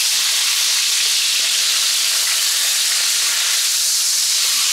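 Steaks searing in hot fat, sizzling steadily.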